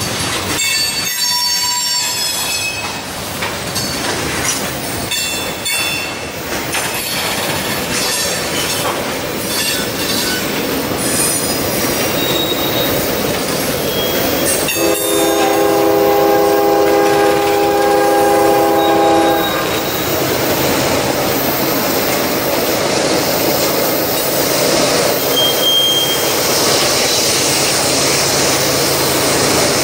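An approaching freight train led by a GE ES44DC and a GE D9-44CW diesel locomotive sounds one long chord on its horn, about four and a half seconds long, starting about halfway through. The rumble of its engines and train noise grows after the horn. Thin high-pitched squeals come and go in the first several seconds.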